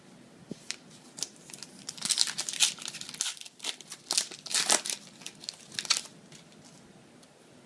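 Foil booster-pack wrapper of Yu-Gi-Oh! cards crinkling and tearing open, a dense run of sharp crackles from about two to six seconds in, after a few single clicks.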